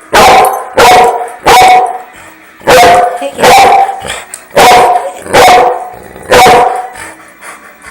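A dog barking loudly and repeatedly: about eight sharp barks in short runs of three, two, two and one, the last one near the end.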